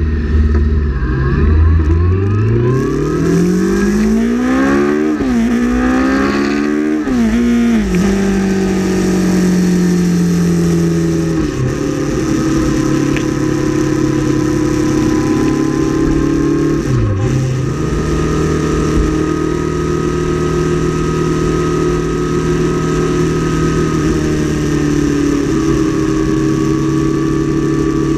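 Motorcycle engine accelerating hard through the gears, its pitch climbing and then dropping sharply at each upshift about five and seven and a half seconds in. It then settles into a steady cruise in top gear, dipping briefly twice, over constant wind and road noise.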